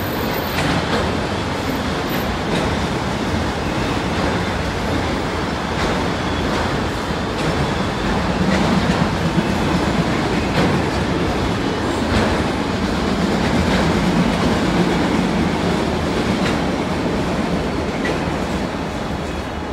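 A freight train of autorack cars rolling past, with a steady rumble of steel wheels on rail and clicks as the wheels cross rail joints.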